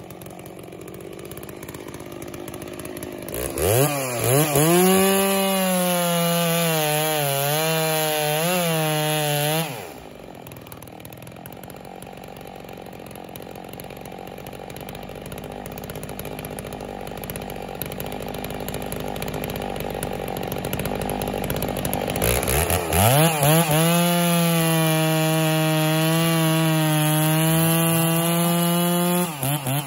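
Two-stroke Stihl chainsaw bucking a log. It idles, then revs to full throttle and cuts for about six seconds, the pitch dipping as the chain bites. It drops back to idle for about twelve seconds, then revs and cuts again for about seven seconds, breaking into quick pulses as the throttle comes off near the end.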